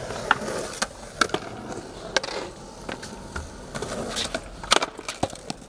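Skateboard wheels rolling over concrete, then about eight sharp, irregular clacks and knocks.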